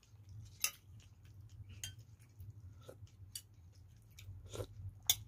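Metal spoon clicking lightly against a bowl as soup is spooned up while eating: a handful of scattered, light clicks.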